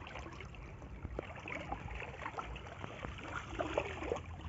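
Faint water trickling and lapping at a rocky lake edge, with scattered small drips and splashes as a wet magnet-fishing rope is hauled in hand over hand.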